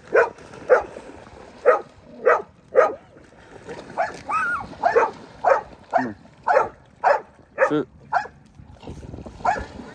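A dog barking over and over: about fourteen short, sharp barks at roughly two a second, with a brief pause before one last bark near the end.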